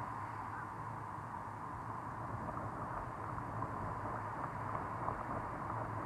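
Surf of small waves washing onto a sandy beach: a steady rush of water noise.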